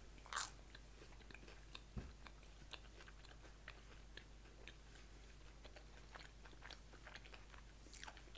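Faint, close-miked chewing and biting of food: a string of small clicks and crunches, with a louder crunch about half a second in, a low knock about two seconds in, and another louder crunch near the end.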